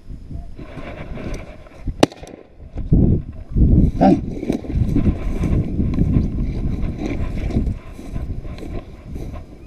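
Footsteps and clothing pushing through dry grass and brush, an irregular rustling and crunching that gets louder about three seconds in, with wind and handling noise on the microphone. One sharp click or snap about two seconds in.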